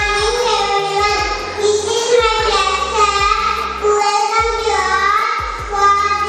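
A young child singing into a microphone, in held, gliding phrases, over background music with a steady low beat.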